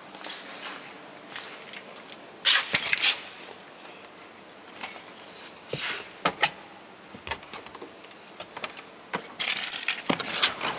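Irregular clinks and rattles of small metal objects being handled, with short louder rattling bursts about two and a half seconds in, around six seconds, and again near the end; no engine running.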